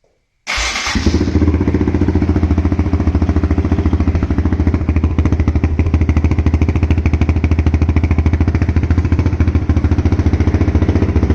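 2008 Honda TRX450R's single-cylinder four-stroke engine firing up on the electric starter about half a second in, catching almost at once, then running steadily. It starts because the starter reduction gear, welded solid, now drives the starter clutch, curing the crank/no-start fault.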